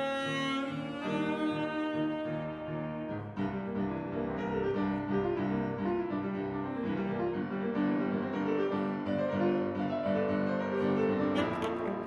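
Saxophone holding long notes over piano. About three seconds in the saxophone stops and the piano plays on alone in a busy passage, with a run of sharp, accented notes near the end.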